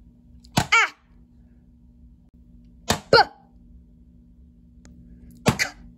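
A voice saying short letter sounds three times, each a quick clipped double syllable that falls in pitch, with a faint steady hum underneath.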